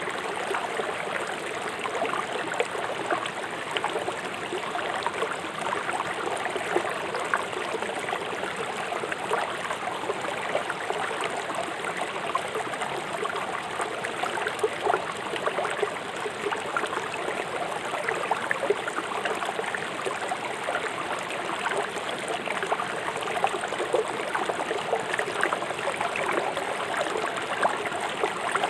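River water rushing fast over stones, a steady splashing and gurgling with many small spatters.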